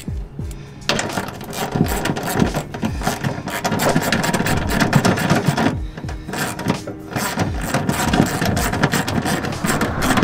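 Small hand ratchet clicking rapidly as it runs nuts onto the bolts that hold a steel propane-tank bracket to the truck bed wall. The clicking starts about a second in and goes on in quick runs with short breaks.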